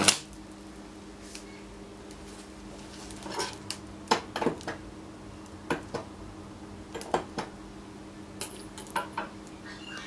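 A loud high-voltage arc from a microwave-oven transformer cuts off at the very start. Then about a dozen sharp, scattered clicks and ticks come from the scorched LCD TV panel, over a steady low mains hum.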